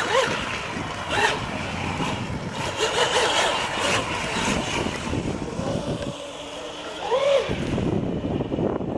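Twin-motor Radtek 20-inch club racer RC boat making fast passes: a high motor whine over the rush of the hull on the water, its pitch arching up and down as it goes by, most clearly about seven seconds in.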